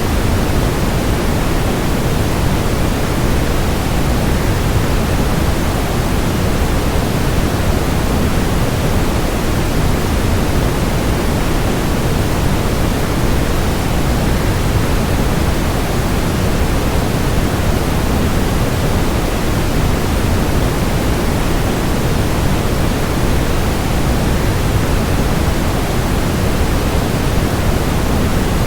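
Waterfall's steady rushing noise, even and unchanging throughout, heaviest in the low end.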